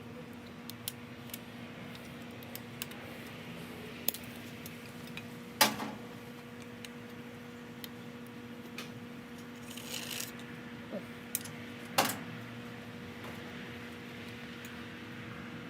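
Metal tools and small bike parts clinking as they are handled and set down. There are scattered light ticks and two louder metallic clanks with a short ring, about six and twelve seconds in, over a steady low hum.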